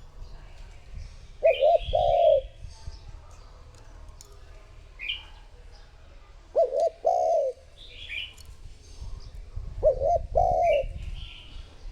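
Spotted dove cooing: three phrases about four seconds apart, each a quick doubled note followed by a longer one. Smaller birds chirp higher up between the coos.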